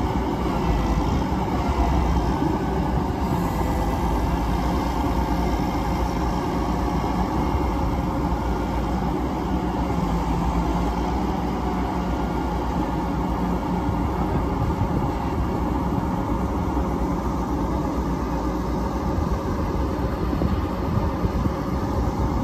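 Heavy-duty diesel tow-truck engines running steadily, a rotator wrecker holding a wrecked semi cab on its boom with a Mack truck alongside.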